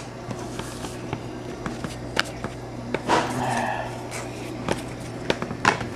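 Football trading cards being handled and flipped through by hand: scattered light clicks and flicks of card stock, with a short rustle about three seconds in.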